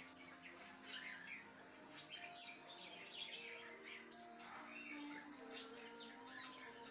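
Lovebird chirping: short, sharp, high chirps that slide downward, coming in quick clusters of several at a time.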